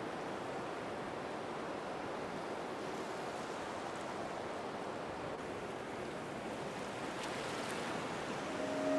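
Steady ocean surf: waves washing as an even, unbroken rush. Near the end a held, multi-toned sound, such as a musical drone, fades in over it.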